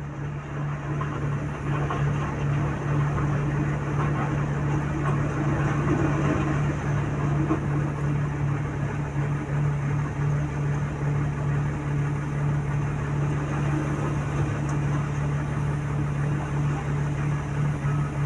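Diesel engine of heavy construction machinery running steadily with a constant low hum.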